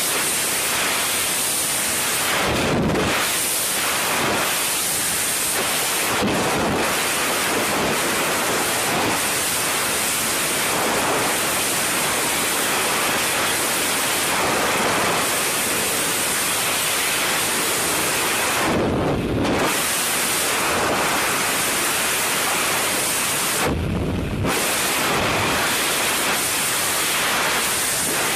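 Loud, steady roar of wind rushing over a helmet camera's microphone in skydiving freefall. It turns deeper and duller for a moment a few times.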